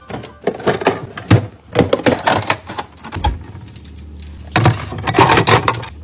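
Refrigerator drawers and clear plastic storage bins sliding, clicking and knocking as the fridge is stocked. A quick run of clicks and knocks, a lull about halfway with one dull thud, then more clatter near the end.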